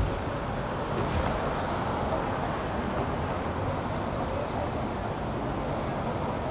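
Steady city street noise: road traffic running along a busy avenue.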